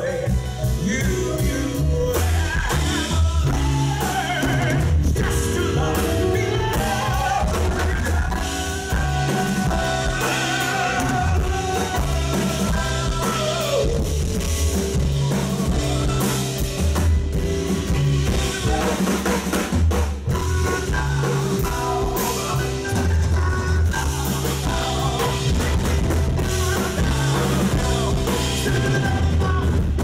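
Live jazz band playing, with double bass and drum kit, and a male voice singing over them into a microphone.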